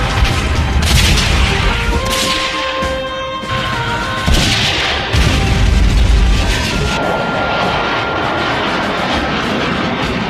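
Recorded battle sound effects played through loudspeakers: heavy explosion booms about a second in and again around five seconds in, with gunfire over music.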